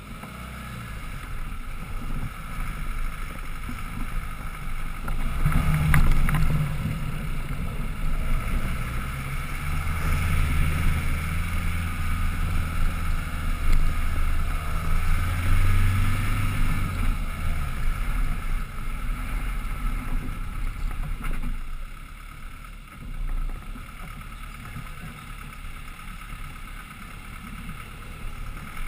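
Land Rover Defender 110's engine pulling under load on an uphill off-road climb, heard from a roof mount with wind noise on the microphone. The engine is loudest through the middle and eases off after about 17 seconds, with a few knocks around six seconds in.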